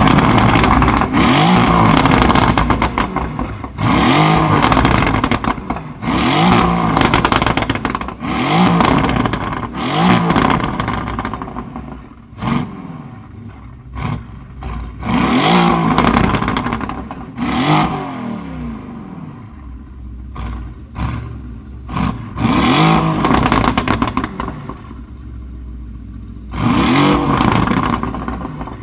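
Mercedes-AMG GT R's twin-turbo V8 through an aftermarket Fi valved exhaust, revved again and again in quick blips that rise and fall in pitch. Each blip is followed by a burst of crackles and pops on the overrun, with short lulls between groups of revs.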